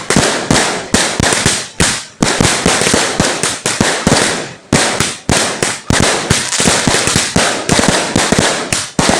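Firecrackers going off in a rapid, continuous barrage of loud sharp bangs, many a second, with no real pause.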